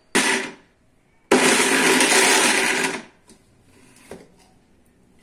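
Electric mixer grinder pulsed on and off while grinding salted peanuts for peanut butter: a short whirr that spins down, then a run of about a second and a half that cuts off. Switching it on and off in short bursts keeps the peanuts coarse at this early stage. A light knock follows about four seconds in.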